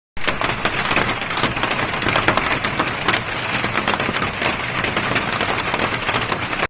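Wood fire crackling and popping, a dense stream of sharp snaps over a steady hiss of burning, beginning abruptly.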